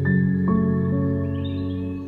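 Background music: slow, soft notes that ring on and overlap one another. A fresh note enters about half a second in.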